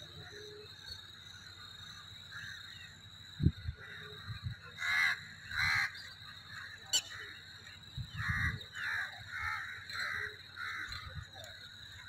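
Crows cawing: two loud caws about five seconds in, then a run of about seven caws roughly every half second from about eight seconds, over a steady high-pitched tone. A single low thump, the loudest sound, comes about three and a half seconds in.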